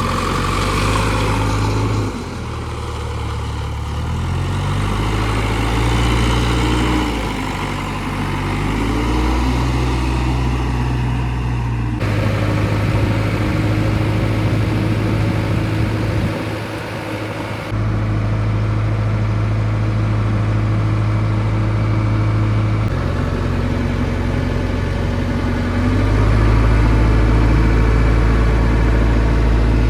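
Backhoe loader's diesel engine running and working, its speed rising and falling as the machine is worked. The sound changes abruptly several times.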